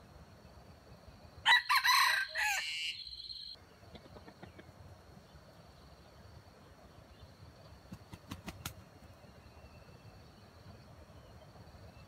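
Red junglefowl rooster crowing once, a loud call of about two seconds starting about a second and a half in and cutting off abruptly. A few sharp clicks follow near the end.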